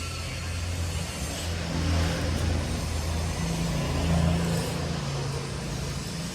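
A car engine running steadily with a low hum, its pitch and level wavering slightly.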